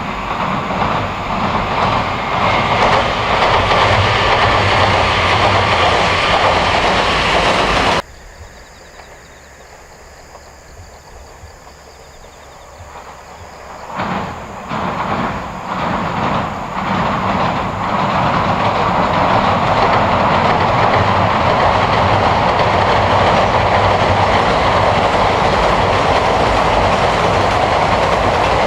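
A JR 119 series electric train crossing a steel railway bridge, its wheels clattering rhythmically over the rail joints, cuts off abruptly about a third of the way in. After several quieter seconds a Meitetsu 1000/1200/1800 series electric train comes onto the bridge, its clatter building up and then running loud and steady to the end.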